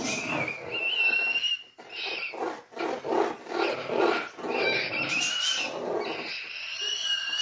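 Cockatoo scraping its beak across its cage floor tray: a series of rasping scrapes, some with a thin wavering high squeal like chalk squeaking on a blackboard.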